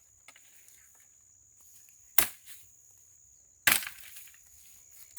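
Dry branches snapping: three sharp cracks of breaking dead wood, a second and a half apart.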